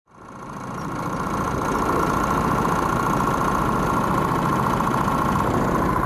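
Several go-kart engines running steadily together, with a steady whine over a rough drone; the sound fades in over the first second.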